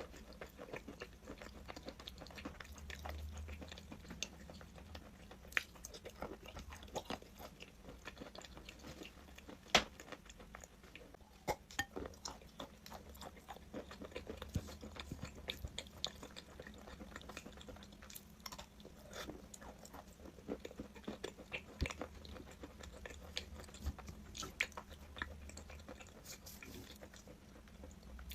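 A person biting and chewing crunchy chalk: irregular crisp crunches and clicks, with a few sharper snaps standing out.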